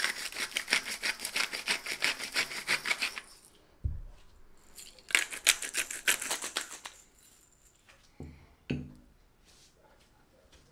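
Hand-twisted spice grinders clicking rapidly as they grind seasoning onto raw beef, in two spells; the second is a pepper grinder full of black peppercorns. A few dull knocks come between them, one about four seconds in and two near the end.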